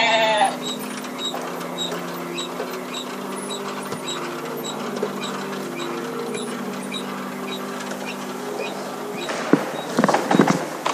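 Sound track of a mechanical nativity scene: steady low droning tones that shift in pitch, with a faint high chirp repeating about twice a second. A few knocks and clatter come in near the end.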